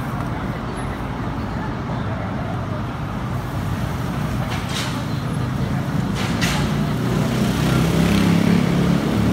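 Steady road traffic rumble, with a passing motor vehicle's engine growing louder near the end, and a couple of light clicks in between.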